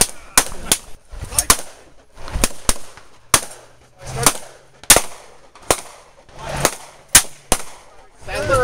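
Gunshots from a Smith & Wesson .44 Magnum revolver and other guns firing on the line. More than a dozen sharp cracks come irregularly, about a half to one second apart.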